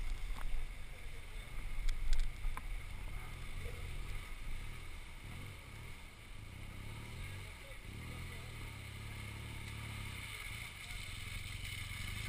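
Adventure motorcycle engines running at low revs, with one bike riding up through the flooded, muddy track and getting closer near the end.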